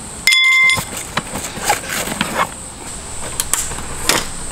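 A short, loud pitched tone near the start, then scattered clicks and light knocks as a folding camp side table's tabletop panel and legs are unfolded and set up.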